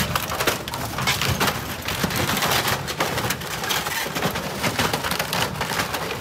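Wooden floating dock being crushed by a superyacht's bow: a dense, continuous run of cracking, crackling and splintering wood.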